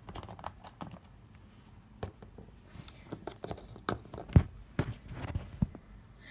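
Irregular light taps and knocks of small plastic toy figures being handled and set down on a surface, with one louder knock about four seconds in.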